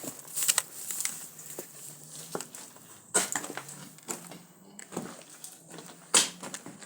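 Footsteps crunching on the floor, a few irregular steps with louder ones about half a second, three seconds and six seconds in.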